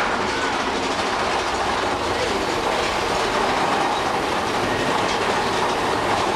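Big Thunder Mountain Railroad mine-train roller coaster running along its track: a steady clatter of wheels on rail, heard from on board.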